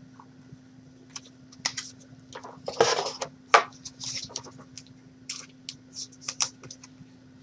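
Trading cards being handled and flipped through: a run of short, irregular dry clicks and rustles of card stock.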